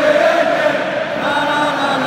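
Stadium crowd of football fans singing a slow chant together in long held notes, the tune moving on about a second in.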